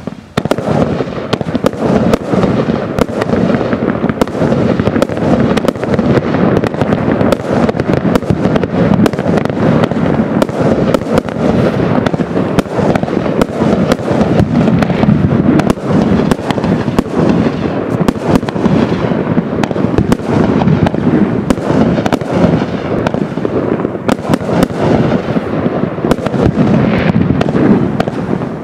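A 49-shot 'Breakout' garden firework cake firing shot after shot with no break: a dense, loud run of sharp bangs, with the crackle of silver glitter and dragon-egg effects.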